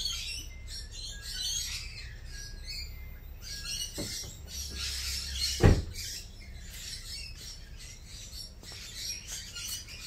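Birds chirping, with a steady low rumble underneath. A car door shuts once, a loud thump a little over halfway through.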